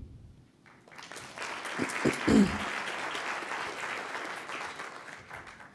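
Audience applauding, starting about a second in and dying away near the end, with a brief voice close by about two seconds in.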